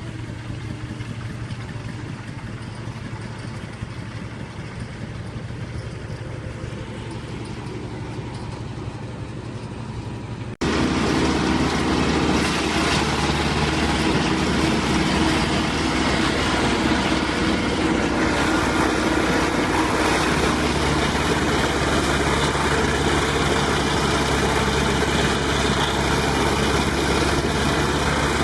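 Engine of a mobile whole-tree wood chipper running steadily. About ten seconds in the sound cuts abruptly to a much louder, noisier run of the machine.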